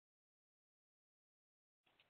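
Near silence, broken only by one very faint, brief blip of noise near the end.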